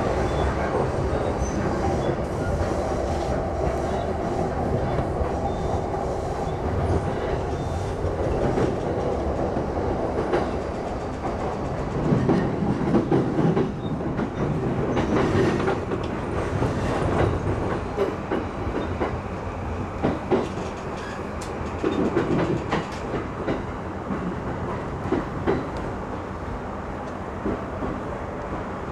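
E235-series electric commuter train running, heard from inside the front car: steady rolling noise with clickety-clack from the wheels over rail joints and points. In the second half it gets quieter, with separate sharp knocks as the train runs in alongside the platform.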